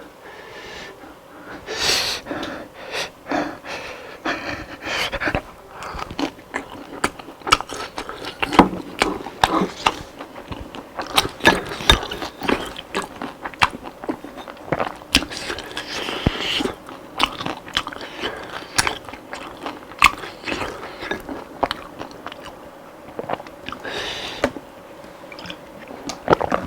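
Close-miked biting and chewing of crispy Korean fried chicken, with many sharp, irregular crunches.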